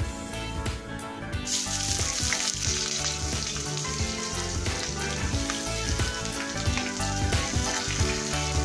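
Sliced shallots hitting hot oil in a wok: a sudden sizzle starts about a second and a half in and keeps frying steadily. Background music plays underneath.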